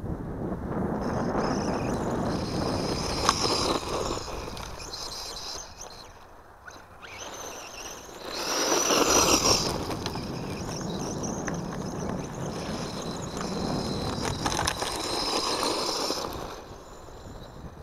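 Radio-controlled buggy driving on a gravel track: its motor whines over the crunch of its tyres on gravel. The sound swells and fades as the car runs away and comes back, and is loudest about eight to ten seconds in.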